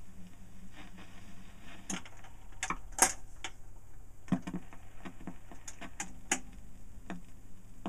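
Automatic record changer cycling: a run of clicks and clunks as the next 78 rpm record drops onto the turntable and the tonearm swings over and sets down, the loudest click about three seconds in, over a low steady hum.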